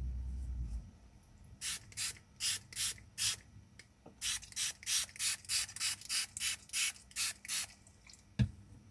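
Hand-held spray bottle misting water onto a wet watercolour painting: about twenty quick squirts in two runs, with a pause of about a second between them. One sharp knock comes near the end.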